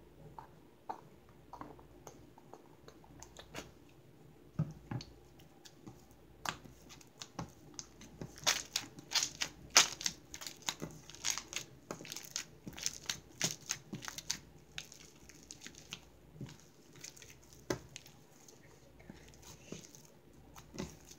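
Hands kneading and squishing butter slime, with many small sticky clicks and pops that come thickly in the middle stretch and thin out toward the end.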